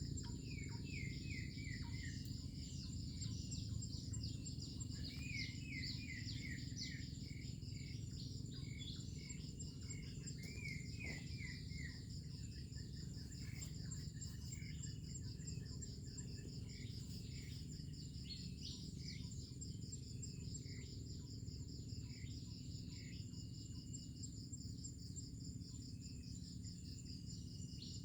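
Crickets and other insects calling in a steady, high-pitched chorus. A bird gives runs of short falling chirps several times in the first half.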